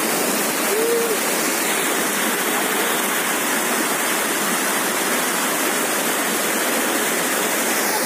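Waterfall: a steady, loud rush of falling water, even throughout. A brief faint voice-like sound comes about a second in.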